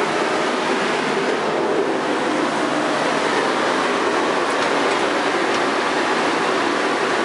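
Wet brick-sanding machine running steadily, its wheels and conveyor grinding with water spraying onto them, a loud, even mechanical noise throughout.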